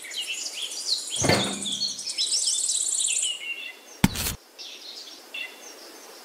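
Small birds chirping and singing throughout, with a fast high trill about two to three seconds in. A knock about a second in and a short sharp tap about four seconds in.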